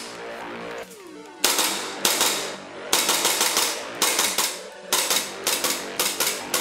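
KWA 1911 gas blowback airsoft pistol (NS2 gas system) firing a string of sharp shots, roughly two a second, starting about a second and a half in, over background music.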